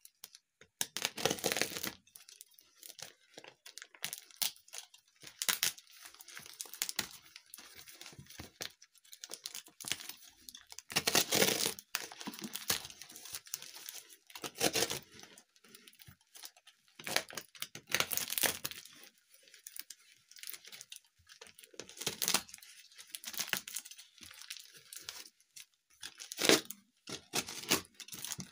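Black plastic parcel wrapping and duct tape being cut with a blade and torn open by hand: irregular bursts of tearing and crinkling plastic with quieter rustling between, the loudest tears about a second in, around eleven and eighteen seconds in, and a short sharp one near the end.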